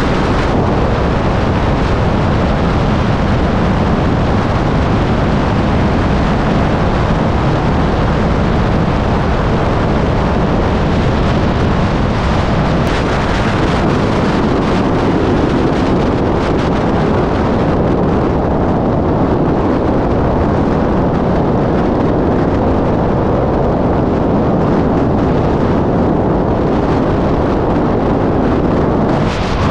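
Loud, steady rush of wind buffeting the microphone of a camera mounted outside a moving van, mixed with the van's road and tyre noise.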